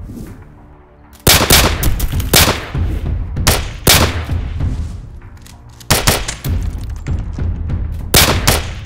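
Handgun gunshot sound effects, sharp shots fired in several rapid volleys starting about a second in, over background music with a heavy low end.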